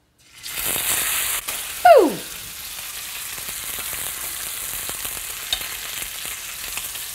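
Steak searing in avocado oil in a very hot cast iron skillet: sizzling that starts suddenly as the steak goes into the pan and is loudest for the first second. About two seconds in there is a brief squeal falling in pitch, then the sizzle settles to a steady level.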